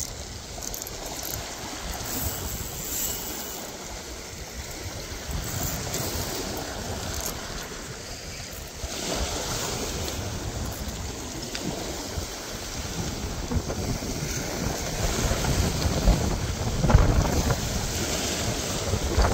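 Wind buffeting the microphone over the wash of small waves on a beach, gusting louder about halfway and again near the end.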